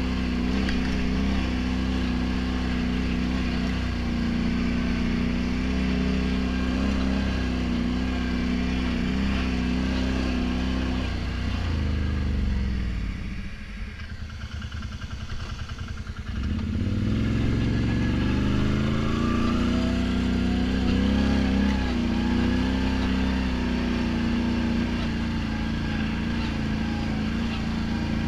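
ATV engine running under steady throttle on a dirt trail. About halfway through, the rider backs off: the pitch falls and the engine drops to a low idle for a few seconds, then it accelerates again with a rising pitch and carries on at steady speed.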